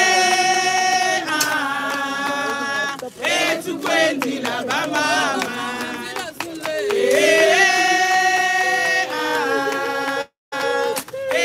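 A group of voices singing a slow hymn in unison, with long held notes in two phrases. The sound cuts out briefly near the end.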